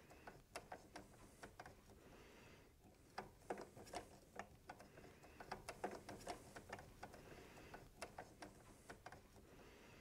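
Faint, irregular clicking and ticking of small screws being handled and started into a drone propeller's hub, coming in clusters with a brief lull between.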